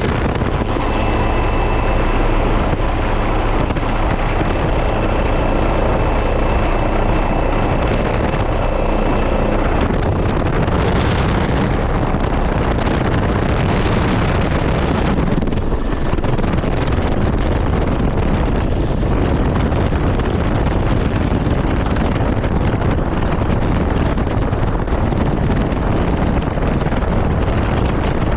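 Firefighting helicopter carrying a water bucket, running loud and steady, with a thin high whine over the rotor noise for the first several seconds. About halfway through, the sound turns duller.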